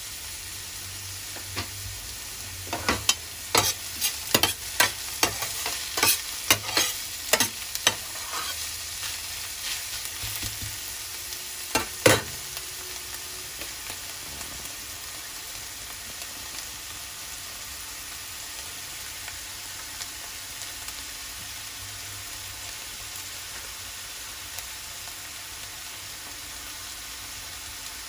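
Chopped onion and garlic sizzling steadily in oil in a stainless steel frying pan, sautéing until browned. A metal spoon knocks and scrapes against the pan while stirring, in a quick run of clinks over the first several seconds and one sharp knock about twelve seconds in.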